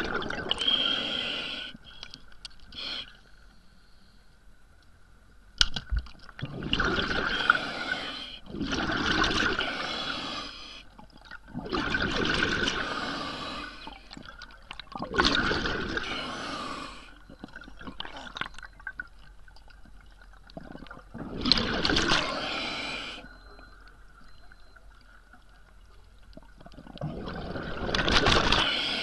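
Underwater recording of a diver's breathing: rushes of bubbling exhaust come about seven times, each lasting a second or two, every few seconds. There is a sharp knock about six seconds in, and a faint steady tone underneath throughout.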